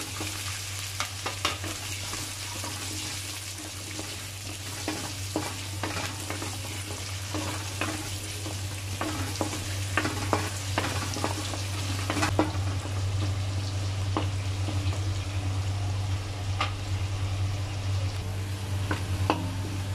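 Diced carrots and potatoes sizzling in hot oil in a stainless steel frying pan, with many short clicks and scrapes as they are stirred. A steady low hum runs underneath.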